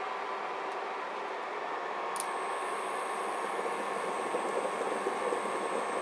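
Water boiling in a lidded stainless steel pot on an induction cooker: a steady bubbling hiss that grows livelier in the second half. A faint high whine comes in with a click about two seconds in.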